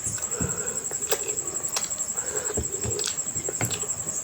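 Close-miked chewing and lip-smacking of someone eating mutton curry with rice: irregular wet clicks and smacks. A steady high-pitched whine runs behind.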